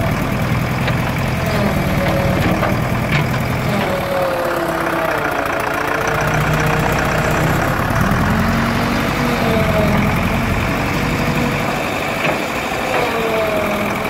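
Diesel engine of an old JCB Model 4 backhoe loader running steadily while the backhoe arm digs, with a tone that rises and falls every few seconds as the machine is worked.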